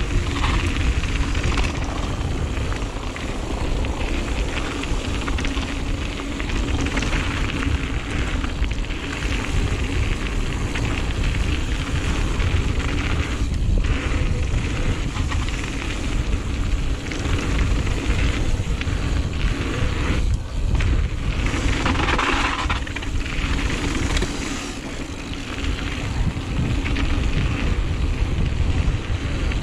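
Wind rumbling on a GoPro's microphone together with tyre roar and rattle from a Giant Reign full-suspension mountain bike riding down a dirt flow trail. The noise is steady and loud, with a stretch of brighter hiss about three-quarters of the way through.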